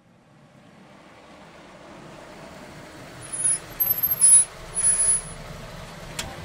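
Dodge Challenger SRT8 392's 6.4-litre HEMI V8 driving past and away, its sound building steadily, with three loud bursts carrying a high whistle about three to five seconds in.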